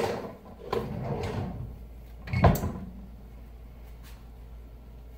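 Oven being opened and the baked pie lifted out: handling knocks and clatter, with one sharp thump about two and a half seconds in, then a low steady hum.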